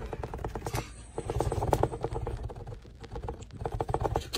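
A kitten's claws scratching and tapping quickly on a cardboard box: a rapid run of light clicks, about ten a second, with a short break about three seconds in.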